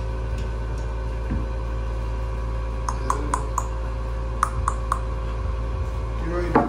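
Two quick runs of light clinks, four and then three, over a steady low hum, with a short louder sound just before the end.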